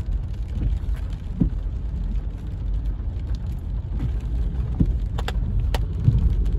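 Car running slowly on a rain-wet street, heard from inside the cabin: a steady low rumble of engine and tyres, with a few sharp ticks near the end.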